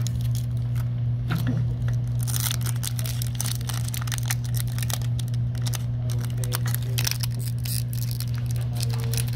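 Foil wrapper of a Pokémon booster pack crinkling and tearing in many short, irregular crackles as hands struggle to rip it open, over a steady low hum.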